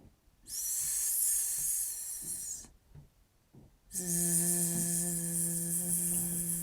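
A person holding a long hissing 'sss' for about two seconds, then, after a short pause, a long buzzing 'zzz' on one steady pitch. This contrasts the voiceless S sound, a stream of air only, with the voiced Z sound, the same hiss with the vocal cords vibrating.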